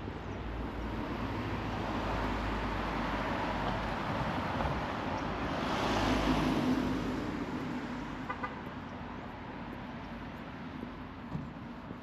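A vehicle passing by, its sound swelling over several seconds to a peak about six seconds in and then fading.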